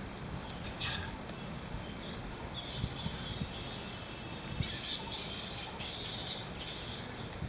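Birds chirping and calling in several short, high-pitched bursts over a steady outdoor background, the sharpest burst about a second in, with a few soft low thumps.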